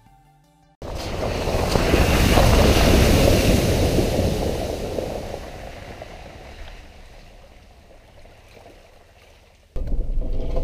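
Rush of a shallow, muddy river flowing over stones, a steady noisy wash that comes in suddenly about a second in and slowly fades. Near the end it cuts to the low rumble of a vehicle driving on a rough road, heard from inside the cab.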